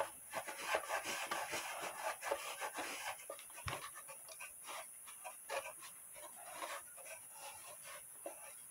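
Cloth rubbing over the bare wood inside a cuckoo clock case, wiping Old English furniture oil in quick, irregular scratchy strokes, with one light knock of the wooden case a little before halfway.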